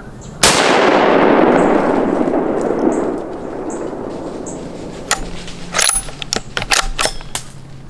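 A single rifle shot from a 6.5 Creedmoor about half a second in, its report rolling away for about two and a half seconds. A few seconds later, a quick run of sharp clicks and knocks.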